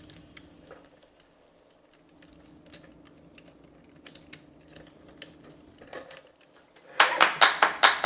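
Faint, scattered clicks and light knocks of hard plastic toy parts being handled and snapped together. About seven seconds in, a loud, fast, even run of sharp taps starts: the beat of background music.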